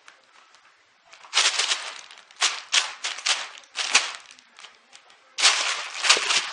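Thin plastic bag crinkling and rustling as a cat wrestles and rolls inside it: faint rustling for about the first second, then several loud crackling bursts.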